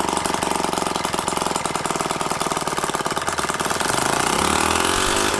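A homemade single-cylinder two-stroke gasoline engine, built from hardware-store parts and running with no proper exhaust, firing in a fast, continuous, buzzing rasp. Near the end its speed wavers up and down.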